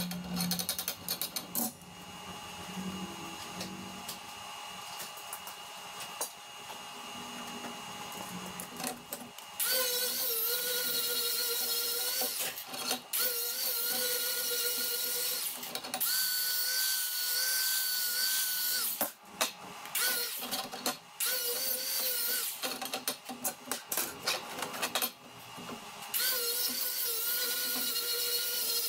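Small hand-held grinder with a sanding disc grinding the edge of a plasma-cut mild steel part held in a vise: a steady motor whine over a rough grinding noise. It comes in runs of a few seconds with short breaks between them, and the loud grinding starts about a third of the way in after a quieter stretch.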